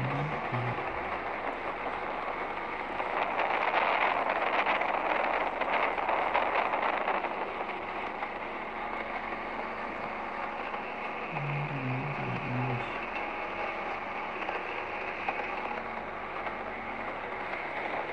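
Rushing water and spray along the hull of a fast passenger boat under way, over a steady low engine hum. The water noise swells louder a few seconds in, then settles.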